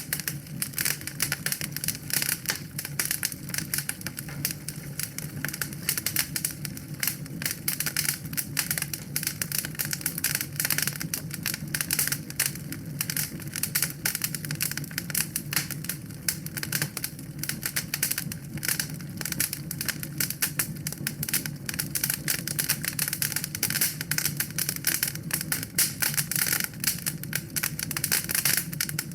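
Wood fire burning in a fireplace, crackling steadily with dense rapid pops and snaps over a low, even rumble of the flames.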